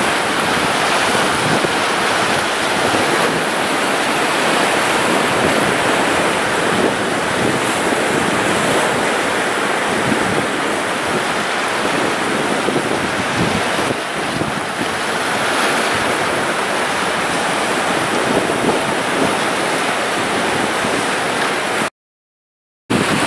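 Sea surf breaking on a rocky foreshore: a steady rushing wash of waves on rocks that swells now and then. The sound drops out completely for under a second near the end.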